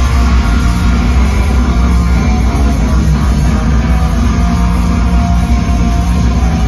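Heavy metal band playing live, loud and dense: distorted electric guitars over bass and drums.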